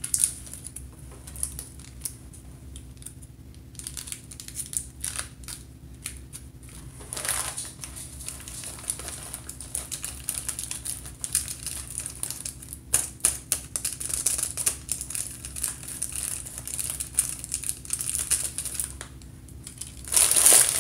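Plastic snack bag crinkling and rustling as it is handled and opened, with scattered crackles and a louder burst of crinkling near the end.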